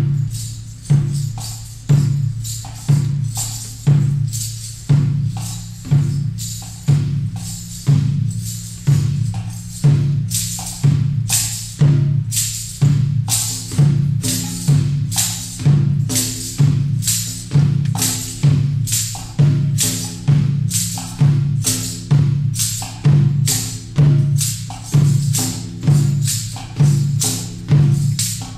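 Live hand drumming on a frame drum and a double-headed barrel drum: a steady, slow beat of about one deep stroke a second, each dying away, with lighter, sharper taps between.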